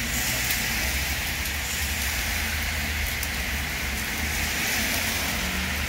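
Heavy rain pouring onto a wet road and paving: a steady, dense hiss of splashing drops. A low rumble runs underneath it, with a car driving past on the wet road.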